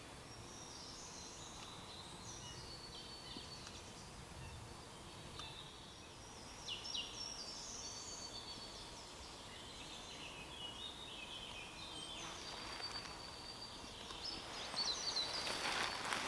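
Forest birdsong: several small birds singing and calling in short, high phrases. Near the end, dry fallen leaves rustle and crackle as a person shifts his weight on the leaf litter.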